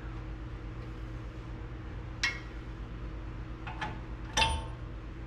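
A few sharp metal clicks from a hand tool working the ball-joint castle nut, three in all about a second or so apart, over a steady low hum.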